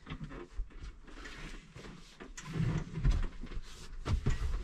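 Van front seat being swivelled round on a newly fitted swivel base: clicks and clunks from the release lever and turntable mechanism, with heavier thumps about two and a half and four seconds in.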